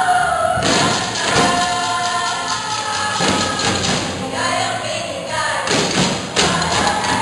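Music with heavy drum hits roughly once a second under sustained singing voices.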